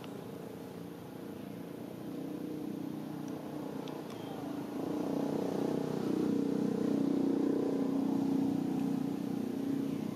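A motor vehicle engine running steadily, growing louder about five seconds in and holding near its loudest through most of the rest.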